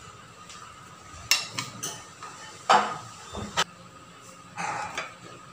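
Kitchen knife clinking and scraping against a ceramic plate while butter is spread on pancakes: several sharp clinks in the first few seconds, the loudest near the middle, then a short scrape near the end.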